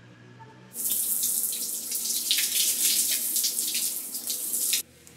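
Water running hard, starting suddenly about a second in and cutting off abruptly near the end.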